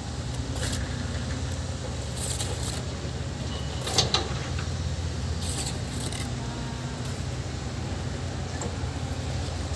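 Metal trowel clinking and scraping on concrete blocks and mortar, with two sharp knocks about four seconds in, over a steady low engine hum from heavy machinery on the site.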